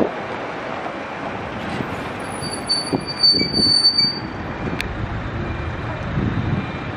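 Tram running on street rails, its steel wheels squealing in a high, steady tone for about two seconds partway through, over a steady rumble.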